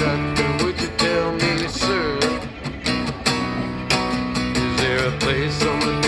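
Acoustic guitar strummed in a quick, steady rhythm meant to match a train rolling down the tracks.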